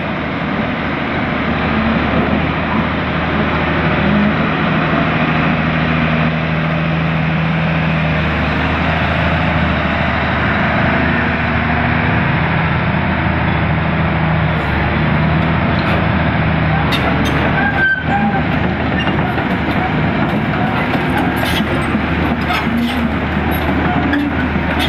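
Volvo EC330BLC tracked excavator with its diesel engine running steadily under load as the machine moves. About two-thirds of the way in, sharp metallic clanks and clicks start and grow more frequent.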